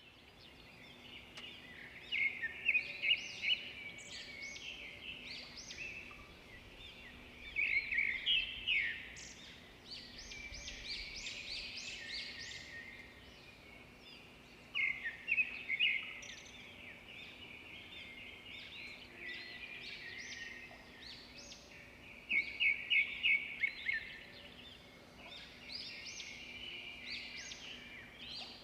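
Songbirds chirping and singing, several voices overlapping in a dawn-chorus-like mix. Every six or seven seconds there is a louder run of rapid repeated chirps.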